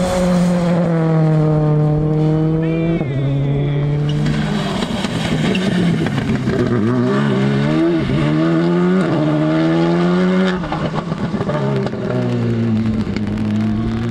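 Rally car engine driven hard. Its pitch holds, then climbs and drops again and again as the driver works the throttle and shifts gears, with a choppy, uneven stretch near the end before it climbs once more.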